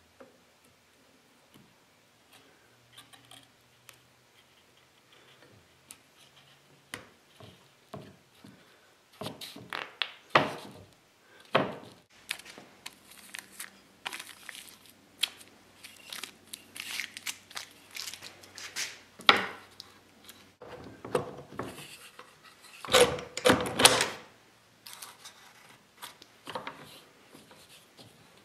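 Wooden pieces and hand tools being handled at a workbench: irregular knocks, clicks and rubs, with louder clatters about ten, nineteen and twenty-three seconds in.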